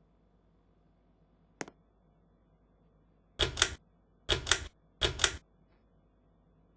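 Ceiling fan pull-chain switch clicking: one single click, then three quick clusters of two or three clicks each, about a second apart.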